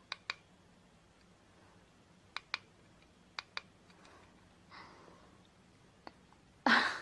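Clicking of a small selfie ring light's on/off push button, pressed to step up its brightness: three quick pairs of clicks, then a single click. A brief loud rush of noise near the end.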